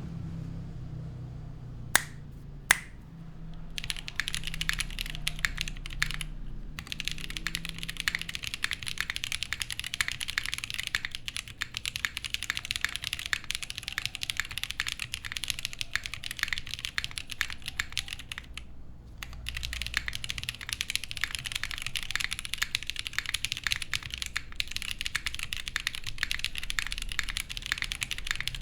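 Mechanical keyboard with lubed Holy Panda tactile switches, a poly plate and GMK keycaps (a top-mount Monokei x TGR 910 v2 ME) being typed on fast and continuously in a run of dense keystrokes, with short pauses about six and nineteen seconds in. Two louder sharp clicks come about two seconds in, before the typing starts.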